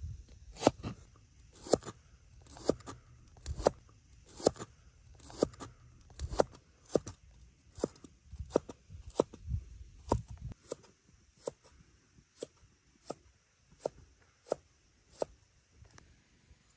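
Large knife chopping through young bamboo shoot onto a wooden chopping board: a steady run of sharp chops, about one or two a second, that stops near the end.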